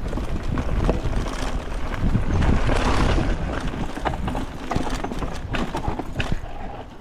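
Mountain bike ridden fast down a rough dirt trail, rattling and knocking over the bumps above a low rumble of wind on the microphone. It is loudest about two to three seconds in.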